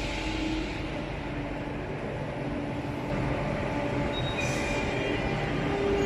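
Madrid Metro series 8400 electric train starting to pull away from the platform, its traction equipment humming with several steady tones that grow a little louder over the second half.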